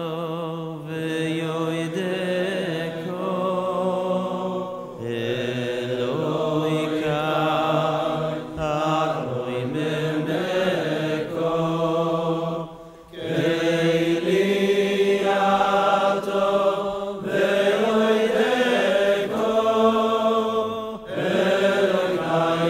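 Slow Jewish liturgical chanting: a voice holds long, wavering notes over a steady low tone, breaking off briefly about thirteen seconds in before resuming.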